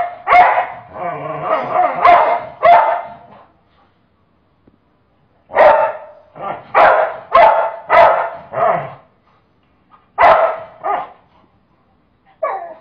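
A dog barking repeatedly: runs of several quick, sharp barks with short silent pauses between the runs.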